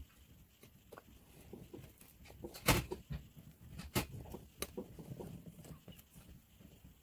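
Quiet handling and rustling with a few sharp clicks as metal tweezers pick seeds out of a strawberry held over a paper towel. The loudest click comes about two and a half seconds in, with smaller ones about a second later.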